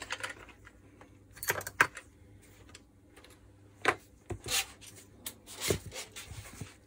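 Metal parts of a disassembled Makita HR2450 rotary hammer's striker and cylinder assembly being handled: a few light metallic clinks and knocks spread over several seconds.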